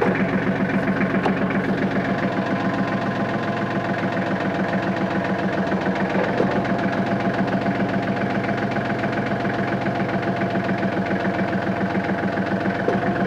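Compact loader tractor's diesel engine idling steadily with a fast, even clatter.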